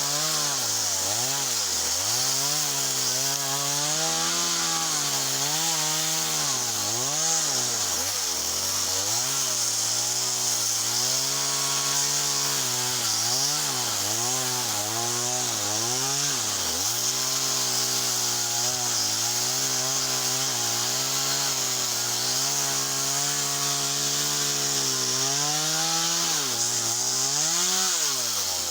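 Small chainsaw's engine running hard, cutting into softwood. Its pitch dips every second or two as the chain bites into the wood, then picks up again.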